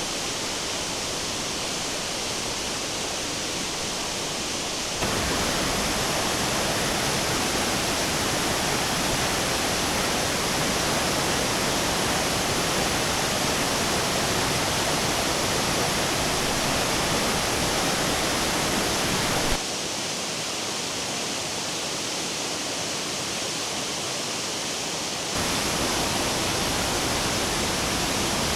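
Steady rush of a waterfall, an even hiss of falling water across low and high pitches. It abruptly gets louder about five seconds in, softer near twenty seconds, and louder again near the end.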